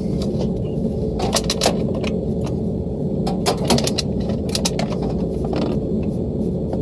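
Ratcheting speed wrench clicking in quick irregular runs as bolts on a blower motor bracket are tightened, over a steady low hum of machinery.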